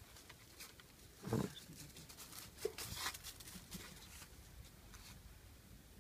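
Cairn terrier biting at an apple held out by hand: a short grunt about a second in, then a quick run of crunching, snapping bites a little later.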